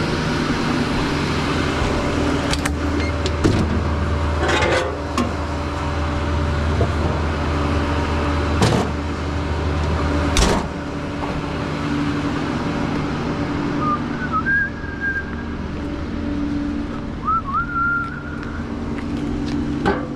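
Vehicle engine idling with a steady deep hum, and several sharp clunks; the deepest part of the engine sound stops about halfway through. Two short chirps come later.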